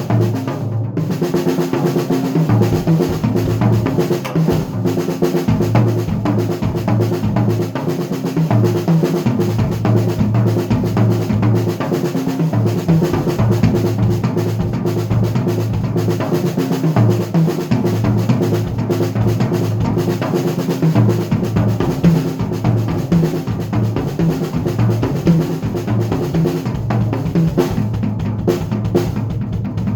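Drum kit being played, with bass drum and snare strokes in a dense, continuous pattern.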